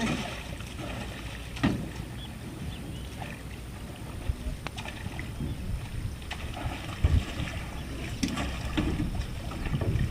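Water splashing and sloshing around a small homemade boat, with a few sharp knocks against the hull, over a steady low rumble of wind on the microphone.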